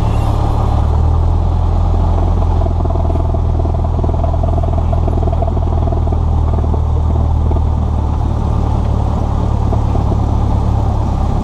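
Cessna 172S's four-cylinder Lycoming engine and propeller running steadily at low taxi power, heard inside the cockpit as a steady low drone. A faint steady tone sounds for a few seconds in the middle.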